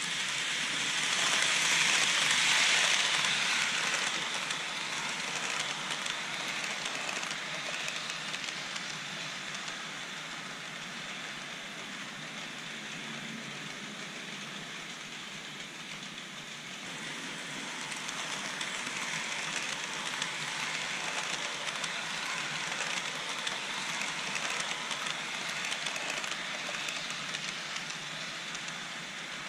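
H0-scale model train hauling Roco BLS EW IV passenger coaches, rolling over plastic sectional track with a steady rattling hiss of wheels on rail. It is loudest about two seconds in, quieter in the middle as the train runs along the far side of the loop, and louder again near the end as the coaches pass close by.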